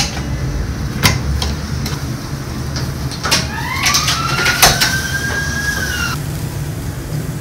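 Metal clanks of tongs and a wire grill basket being handled at a commercial charcoal grill, over a steady low rumble. About three seconds in, a high whine rises in pitch, holds, and cuts off suddenly about three seconds later.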